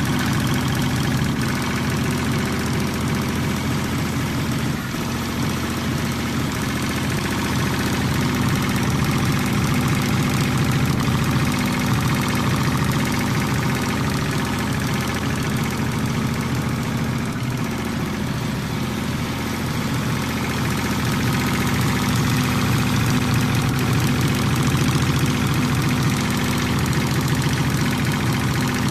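ANZE CNC leather punching machine running, its punch head perforating leather in a fast, even stream of strokes too quick to count, over a steady low hum.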